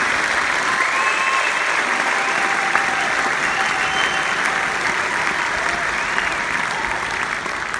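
Large arena crowd applauding, with a few whistles rising and falling above the clapping; the applause eases off near the end.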